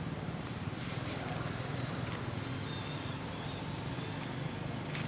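Steady low outdoor rumble with several short, high-pitched animal chirps and squeaks scattered through, the sharpest about a second in.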